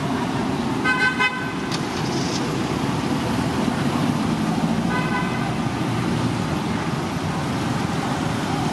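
Steady traffic noise from passing road vehicles, with short horn toots about a second in and again about five seconds in.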